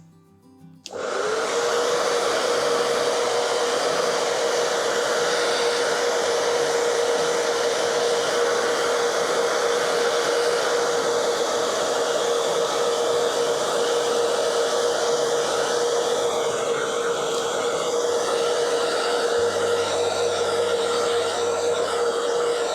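Hair dryer switched on about a second in and running steadily: rushing air with an even whine. It is drying a freshly washed Swiss Army knife, blowing water out of its pivots.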